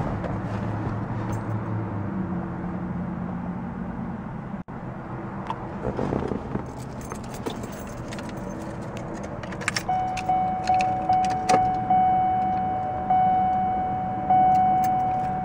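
Keys jangling on the key ring as the ignition key of a 1993 Cadillac Sedan DeVille is worked in the column lock. From about ten seconds in, the car's warning chime dings over and over with the key switched on.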